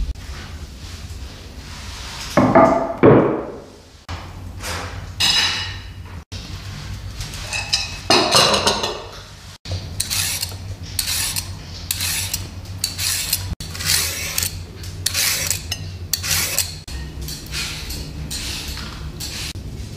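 Short kitchen sounds with hard cuts between them: a couple of louder ringing metallic scrapes, then a vegetable peeler scraping down a carrot in repeated strokes, about one or two a second.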